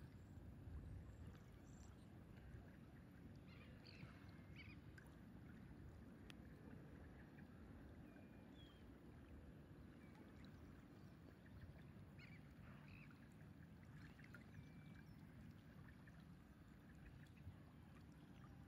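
Faint outdoor ambience: a steady low rumble of wind and lapping water, with a few faint, short bird calls about four seconds in, around eight to nine seconds, and again around twelve to fifteen seconds.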